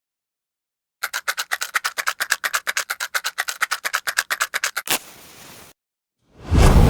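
A rapid, even rattle at about ten a second for some four seconds, then a match struck with a short hiss as it flares, and near the end a sudden loud whoosh as the fire catches.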